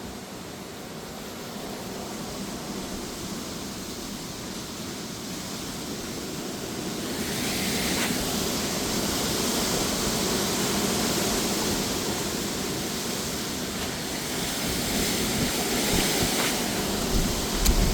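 Strong gusty wind with rain, a steady rushing noise that swells into a loud gust about seven seconds in and keeps surging. A few faint ticks or knocks sound through it.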